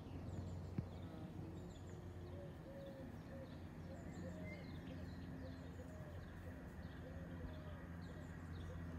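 Birds singing, with short repeated cooing calls and high chirps from small birds. Beneath them runs a faint, steady low drone from a diesel train approaching in the distance.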